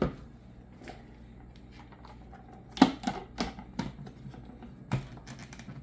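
Plastic lid being worked onto a Vitamix blender container: a series of sharp plastic clicks and knocks, the loudest about three seconds in.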